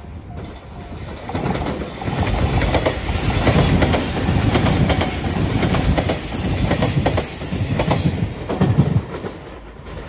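JR Shikoku 8000 series electric limited express train passing close at speed, wheels clacking over the rail joints. It builds about a second and a half in, stays loud, and drops away about nine seconds in.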